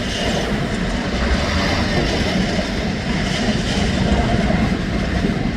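Rubble-recycling crusher running steadily, with a deep rumble and a continuous clatter of broken stone and concrete passing through it.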